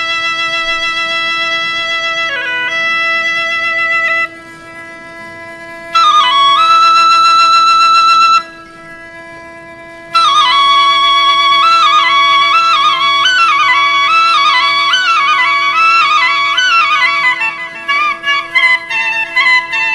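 Background music: a melody in held notes, then with sliding, ornamented runs from about halfway, over a steady drone note. It drops quieter for a couple of seconds twice in the first half.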